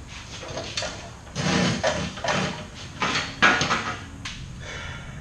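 Clanks and scraping of a steel bandsaw stand on casters being tipped, shifted and set down on a concrete floor, in several uneven bursts, the loudest a little past the middle.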